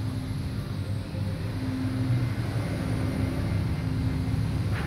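1972 Chevrolet C10 Cheyenne pickup's engine idling steadily through a new two-chamber Flowmaster exhaust, heard from the open engine bay.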